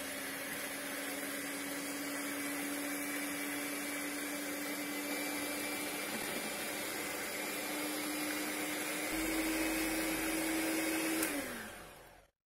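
Pigeon electric hand mixer running, its beaters whisking a thin coffee-and-milk mixture in a plastic bowl. The steady motor hum rises in pitch a little past halfway, then winds down and stops near the end.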